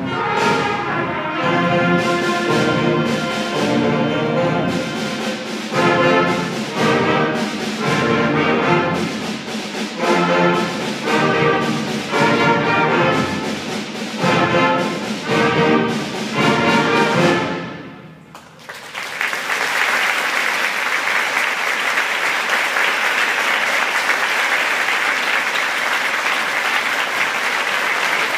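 Middle school concert band with prominent brass playing the close of a piece, a run of loud short chords about once a second before the music stops about 18 seconds in. Audience applause follows and continues.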